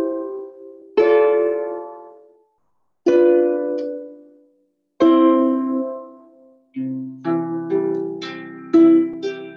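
Lever harp playing slow plucked chords, struck about every two seconds and each left to ring and fade. Near the end the notes come quicker, over held bass notes.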